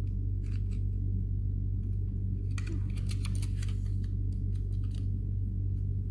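Small clicks and scrapes of a coat-hanger wire hook poking about inside a Fujica AX-3 film camera body, trying to catch a latch; a quick flurry of clicks comes about two and a half seconds in. A steady low hum runs underneath.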